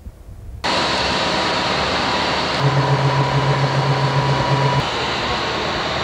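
Steady mechanical hiss that starts abruptly about half a second in, with a low pulsing hum added for about two seconds in the middle.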